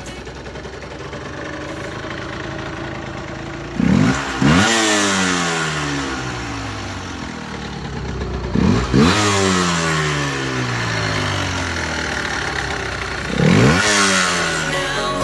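Yamaha TDR 125 two-stroke single-cylinder engine idling and revved three times with quick throttle blips, each rising sharply in pitch and then falling away slowly back to idle.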